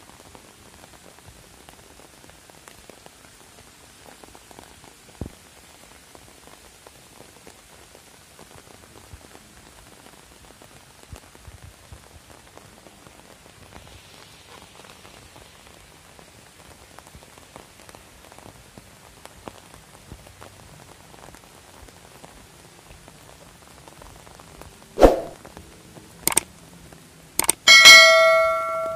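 Light rain pattering steadily. Near the end, the sound effects of a subscribe-button animation: a few sharp clicks, then a ringing bell-like chime.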